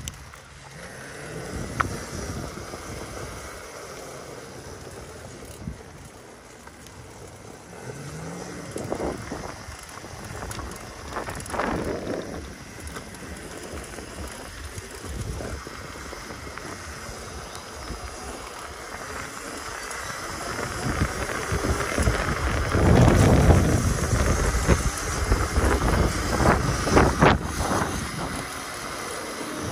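Wind buffeting the microphone in uneven gusts, growing louder and rougher in the last third.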